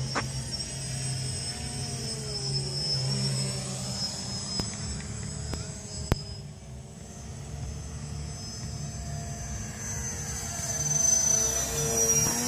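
Electric RC model plane, an E-flite T-34 Mentor, flying past: the whine of its motor and propeller sweeps in pitch as it passes and grows louder near the end. A few sharp clicks come in the middle.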